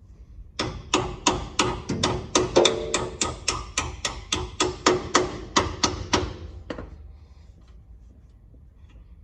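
Steady hand-hammering on metal: about twenty sharp blows at roughly three a second, each ringing briefly, then the blows stop.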